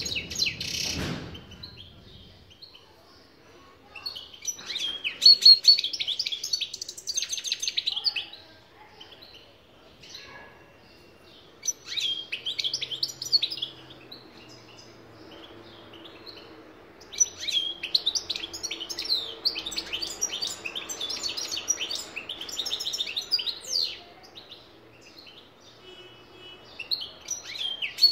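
European goldfinch singing in several bursts of fast, high twittering song, with pauses of a few seconds between phrases. A brief rushing noise sounds near the start.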